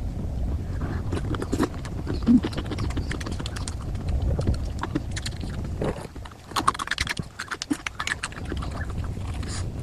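A person eating: chewing and mouth smacks, a run of irregular short clicks over a steady low rumble.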